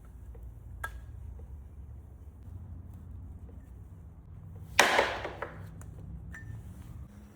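A steady low hum with a few light clicks, and one loud sharp knock about five seconds in that rings out briefly.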